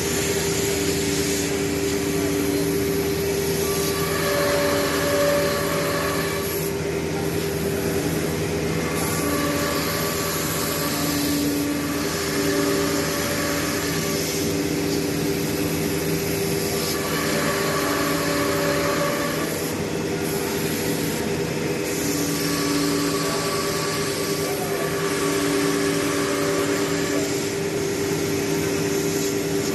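CNC nesting router running: a steady machine hum with whining tones that come and go every few seconds as it works.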